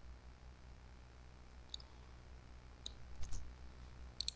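A few faint computer mouse clicks, spaced out, ending in a quick double click, over a faint steady low hum.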